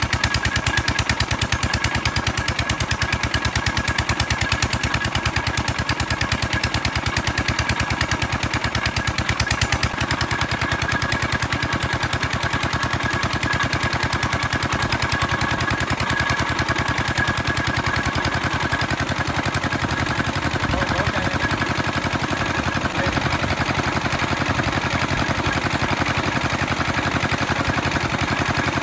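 Small engine running steadily with a rapid, even putt-putt firing beat, powering a cable-winch oil-drilling rig.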